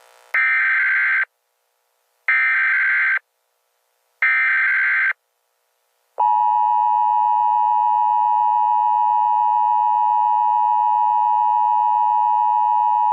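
Emergency Alert System broadcast tones: three short, equal bursts of SAME header data tones about two seconds apart, then, about six seconds in, the steady two-tone EAS attention signal, which holds on.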